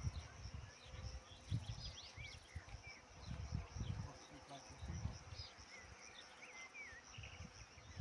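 Insects buzzing steadily, with scattered short bird chirps and irregular low rumbles of wind on the microphone.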